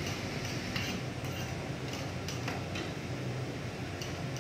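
Metal spatula clinking and scraping against a wok as chilli paste is stirred in, with several irregularly spaced strikes. Under them runs a steady hiss of the paste frying in oil.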